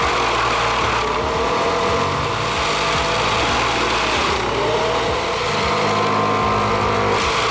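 Self-propelled wood chipper's engine running steadily.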